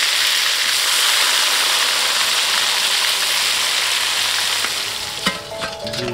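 Chicken pieces deep-frying in hot oil in a wok, a steady dense sizzle. About five seconds in, the sizzle cuts off after a click and music begins.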